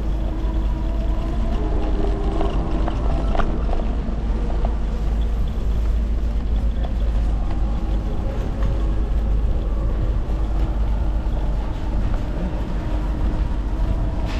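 Steady low wind rumble on an action camera's microphone while riding an electric scooter down a city street, over a hiss of street noise with a few faint steady tones.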